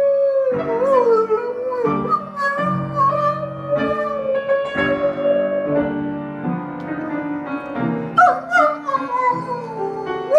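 Rhodesian Ridgeback dog howling along to an upright piano, holding long wavering notes that slide downward near the end, over piano chords.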